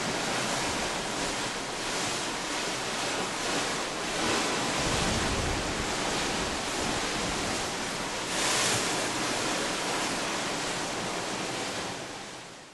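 Sea water rushing and breaking alongside a moving cruise ship, with wind buffeting the microphone. It grows louder about eight seconds in and fades out at the end.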